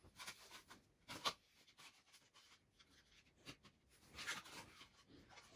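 Faint rustling and handling noises in a quiet room, with a sharper knock about a second in and a longer rustle near the end.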